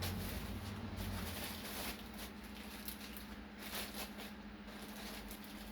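Faint rustling and handling noises of a school backpack being turned over and shown, over a steady low hum.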